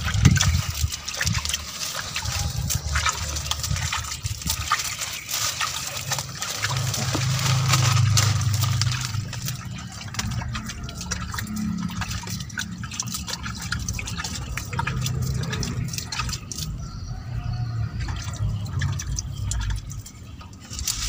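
Water scooped from a plastic basin and splashed and trickled by hand onto soil, with irregular splashes and drips. A low rumble stands out for a couple of seconds near the middle.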